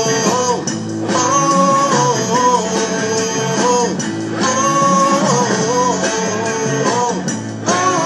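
Music: a song backing track with guitar, with a man's voice singing along into a handheld microphone.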